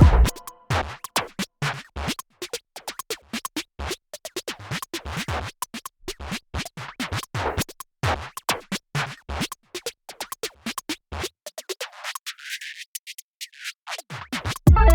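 Electronic background music in a choppy breakdown: short, irregular stuttering stabs with scratch-like sounds, no steady beat. Near the end the low end drops away for a moment before the full music comes back in.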